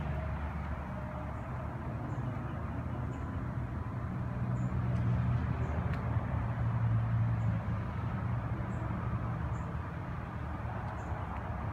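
Harley-Davidson Blackline's V-twin engine idling steadily through its chrome dual exhaust, a little louder for a few seconds midway.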